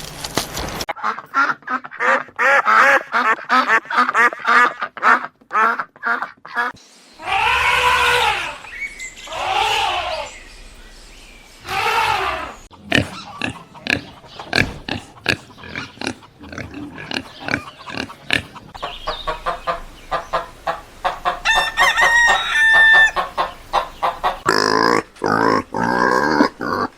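Farm animal calls: a quick run of short clucking or grunting calls, broken by three longer pitched calls about a second each, roughly eight, ten and twelve seconds in.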